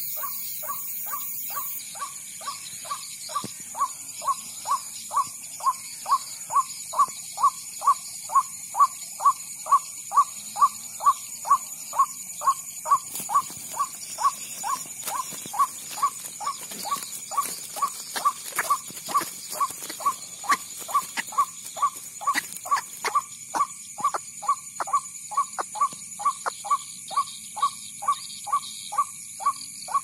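White-breasted waterhen call, a short 'kwak' repeated about twice a second without a break, played as a lure through an electronic bird-caller loudspeaker. The calls grow louder about two seconds in.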